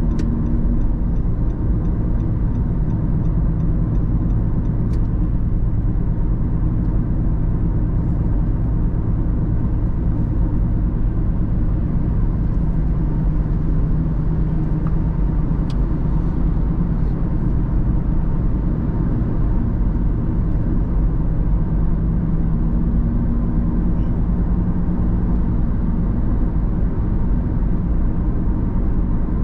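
Car driving along at steady speed: continuous low rumble of engine and road noise, with a faint light ticking in the first few seconds.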